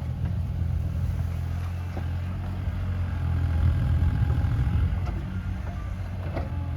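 Bobcat E37 mini excavator's diesel engine running steadily under load, getting louder through the middle, with a few faint knocks from the digging gear.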